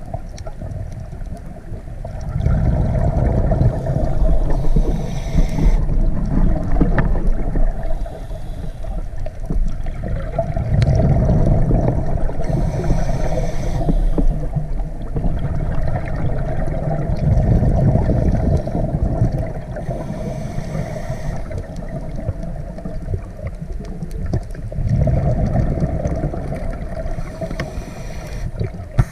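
A scuba diver breathing through a regulator underwater: four slow breaths, each a low rumble of exhaled bubbles followed by a short hiss of inhaled air.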